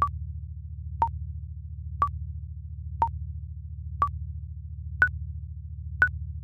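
Countdown timer sound effect: short electronic beeps, one per second, the first five alternating between two pitches and the last two higher, over a steady low pulsing hum.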